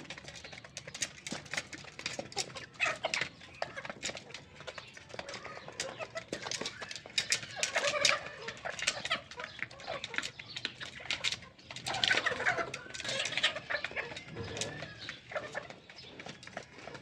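Brahma and Rhode Island Red chickens clucking and calling, with a longer call about two thirds of the way through, over many short sharp clicks.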